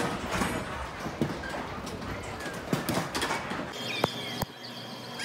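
Carousel ride noise, a busy clatter of knocks and clicks. About four seconds in it cuts to a quieter scene with a steady high tone and two sharp clicks.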